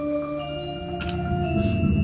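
Percussion ensemble playing a mallet-percussion piece: marimba and other tuned bars sounding overlapping, ringing notes over a low rumble, with a bright metallic strike about a second in.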